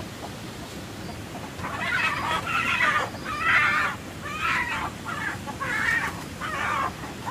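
Chickens calling, a string of about seven short calls beginning about two seconds in, over a steady low background.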